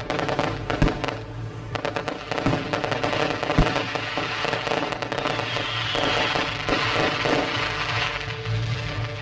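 Fireworks going off: repeated sharp bangs and crackling, with music playing under them.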